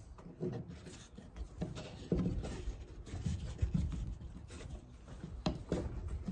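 Quiet handling of a lashing on arrowwood poles: cord and wood rubbing, with soft knocks of the sticks against the frame and table and two sharp clicks near the end.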